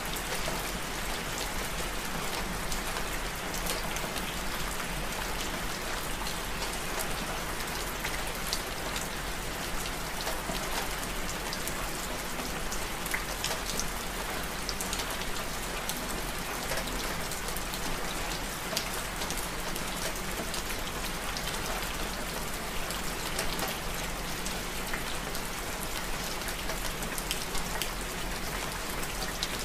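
Steady rain falling, with many separate drops clicking sharply on a hard surface over an even hiss.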